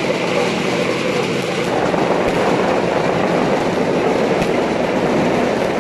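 Loud, steady roar of a large, packed crowd, many voices blending into one continuous din.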